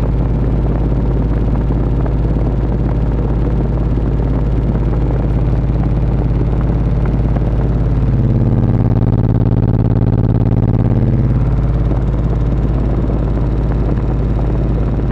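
DL Audio Raven 15 v2 15-inch car subwoofer playing loud, steady deep bass. For about three seconds around the middle, a pitched tone with several overtones rises above it.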